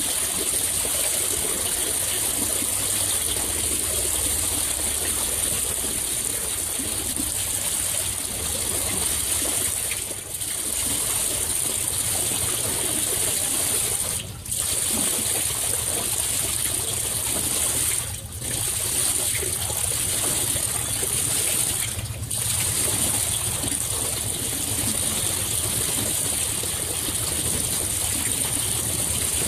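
Lake water lapping and splashing close to a microphone set just above the surface, a steady rushing noise that dips briefly every few seconds.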